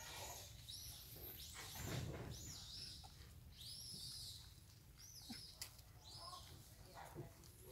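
Infant long-tailed macaque giving a run of thin, high-pitched squeaks, two or three a second, each rising and then falling, with a short pause partway through. A brief soft scuffle comes about two seconds in.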